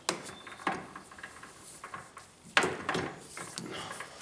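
Capstan turret of a Herbert No. 4 capstan lathe being unlocked and worked round by hand: a few metal clunks and knocks, the loudest about two and a half seconds in, with a brief high squeak near the start.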